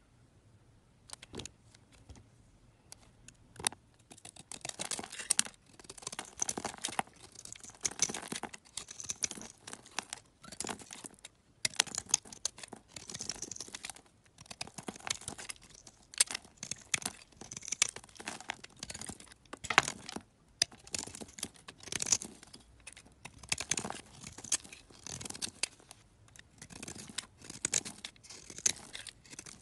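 Utility knife blade shaving thin slices off a bar of soap, one crisp scraping stroke after another, about one or two a second. The first few seconds are quieter, with only a few scattered clicks.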